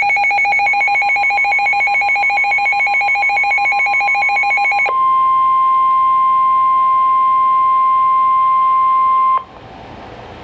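Emergency alert tones: a rapidly pulsing, warbling two-pitch alarm for about five seconds, then a single steady tone near 1 kHz, the NOAA Weather Radio warning alarm tone, held for about four and a half seconds before cutting off sharply.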